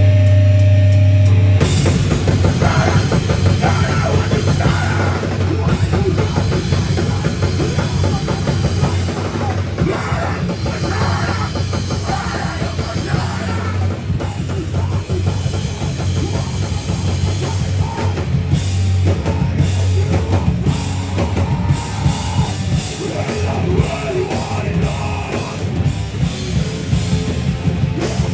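A heavy rock band playing loud live: a held low chord rings for the first second and a half, then the full band crashes in with fast, dense drumming under guitars and bass.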